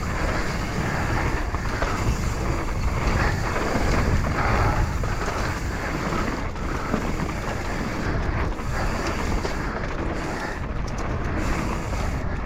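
Mountain bike riding fast down a dirt singletrack: wind buffeting the action camera's microphone over the tyres rolling on dirt, with many short rattles and knocks as the bike runs over bumps.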